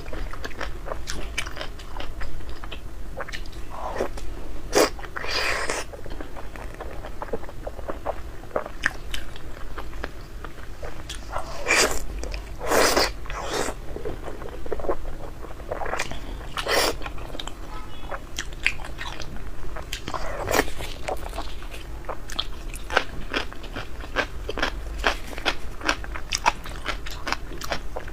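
A person eating close to the microphone: continuous biting and chewing with many small wet mouth clicks, and several louder crunchy bites scattered through.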